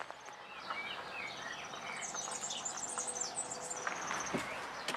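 Small birds chirping, with many short high calls and quick runs of repeated notes overlapping, busiest in the middle.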